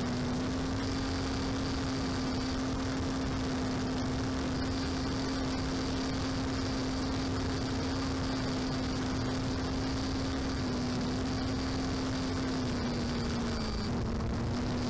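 Electric motor and propeller of a small FPV model aircraft heard from on board: a steady hum whose pitch dips slightly twice near the end, under wind rushing over the microphone.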